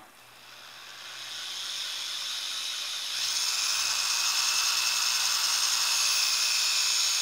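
Electric DeWalt drill with a 3/16-inch bit drilling through a cheek-rest slot into a rifle stock. The motor whine climbs gradually over the first two seconds as the trigger is squeezed, steps up to a higher, louder speed about three seconds in, and then holds steady.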